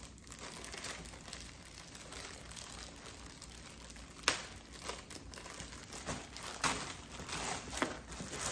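Clear plastic garment bag crinkling as it is handled and opened, with several sharper crackles in the second half.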